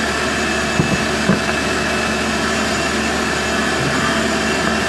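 Steady loud whirring noise from a motor-driven appliance, with two light clicks about a second in.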